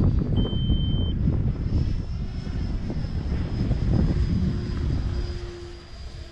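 70 mm electric ducted fan of a 3D-printed RC jet whining steadily in flight, at around half throttle, over a heavy low rumble of wind on the microphone. A short electronic beep sounds about half a second in, and the sound fades near the end as the plane moves off.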